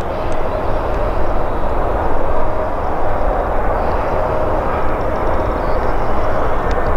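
Embraer E190 jet airliner on final approach, its turbofan engines making a steady rushing noise with a faint whine.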